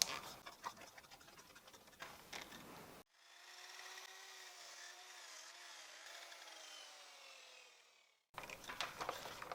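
Faint knocks of wood and tools being handled, then a miter saw's faint whine that wavers and slowly drops in pitch for about five seconds as the blade winds down.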